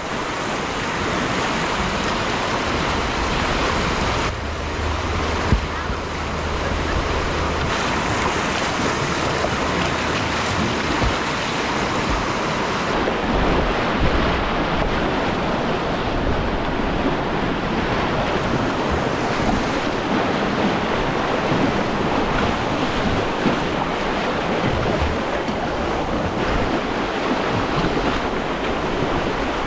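Whitewater rapids rushing and splashing close around a kayak, a steady churning roar of river water, with wind noise on the microphone.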